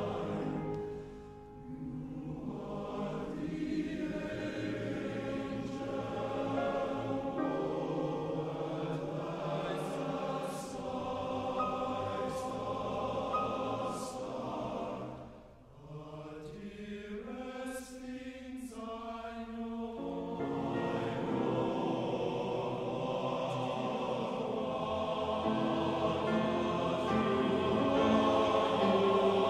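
A choir singing a slow piece in long, sustained phrases, with short breaths between phrases about a second in and again around halfway through.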